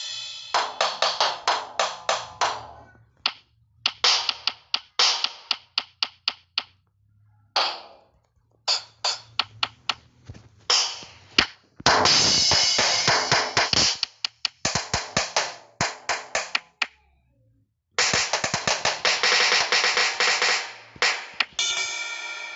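Sampled drums and cymbals of a phone drum-kit app, tapped in quick, uneven bursts of hits with short pauses between, some stretches packed with rapid strikes. Near the end a long ringing note hangs on.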